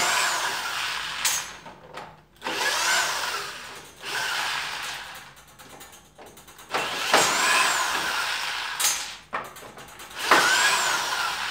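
Yellow corded electric drill backing screws out of a wooden bench vise during disassembly. It runs in four short bursts, each rising then falling in pitch, with brief pauses between.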